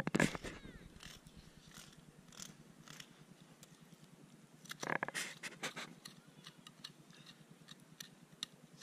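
Knife slicing through an Atlantic salmon's flesh along the backbone while it is filleted: faint scraping and small clicks, with louder bursts right at the start and about five seconds in.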